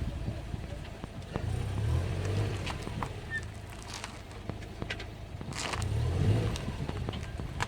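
Car with Endless MX72 brake pads: a low rumbling noise that swells twice, about two seconds in and again around six seconds, with scattered light clicks. This is the brake noise of the MX72 pads.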